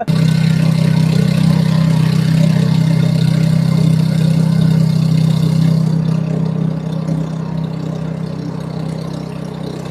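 Small boat engine on a motorized bangka running steadily under way, a constant low drone that eases off somewhat after about six seconds.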